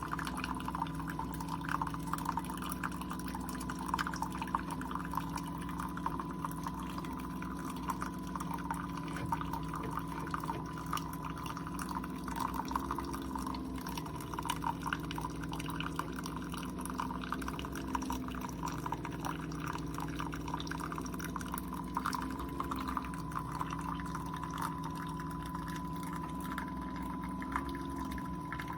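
Keurig K-Supreme Plus single-serve brewer mid-brew: its water pump hums steadily while coffee streams and drips into the mug. The pump note lifts slightly every four or five seconds.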